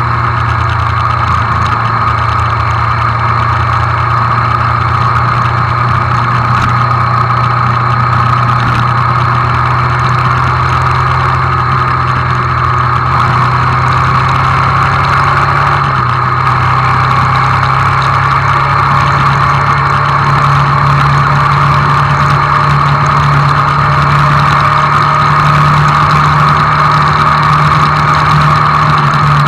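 Hyosung GD250N's single-cylinder engine running at cruise, heard from the rider's seat with steady wind and road rush. About halfway through there is a brief break as it shifts up from 5th to 6th gear, then the engine note rises slowly as the bike accelerates.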